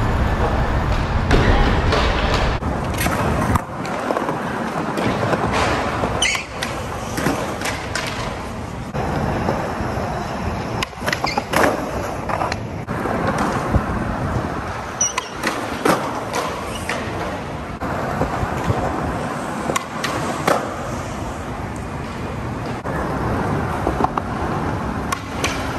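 Skateboard wheels rolling over smooth concrete, broken by several sharp clacks of boards popping and landing.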